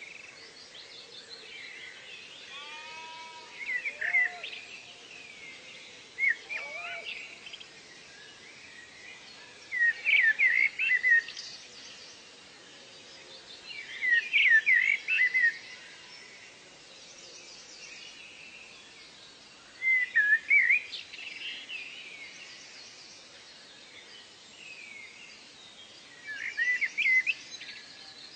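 Songbirds singing in a forest ambience. One bird repeats a loud phrase of quick chirps every four to six seconds, a lower whistling call sounds twice in the first seven seconds, and a faint steady hiss of background insects and birds runs beneath.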